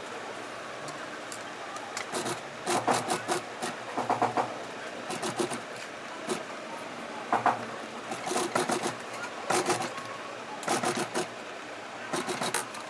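Industrial single-needle sewing machine stitching suede sheepskin in short bursts: about nine quick runs of rapid needle strokes, each lasting under a second, with brief pauses between as the leather is guided. A steady hum runs underneath.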